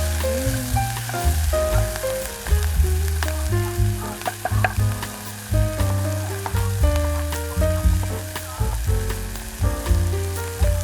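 Food frying in a pan, a steady sizzle with fine crackles, under background music with held notes and a bass line.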